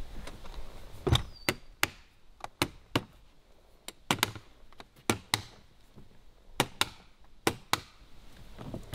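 Latches of a Pelican hard plastic case (PCA0340) being snapped shut one after another: a series of sharp plastic clicks, mostly in pairs about a second apart.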